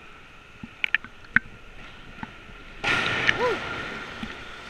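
A few sharp knocks, then about three seconds in a diver hits the water off the diving board with a loud splash that fades slowly in the echoing indoor pool.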